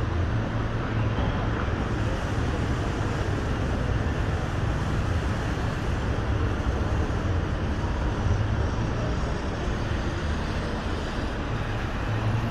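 Road traffic at a roundabout, cars passing continuously. It makes a steady low rumble of engines and tyre noise, with no single sharp event.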